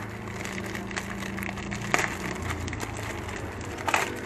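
Plastic bag and foam packing crinkling and rustling as they are handled and opened, with a sharp crackle about two seconds in and another burst near the end, over a steady low hum.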